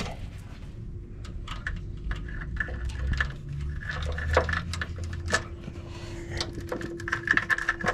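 Light metallic clicks and clinks of timing-chain parts and tools being handled, scattered irregularly, over a faint steady hum.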